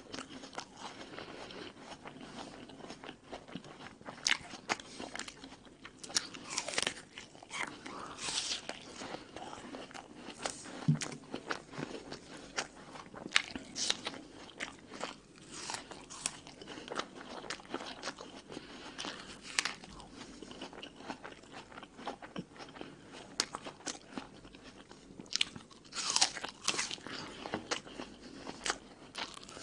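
Close-up crunching and chewing of a red American apple: sharp, irregular crunches as the crisp flesh is bitten and chewed.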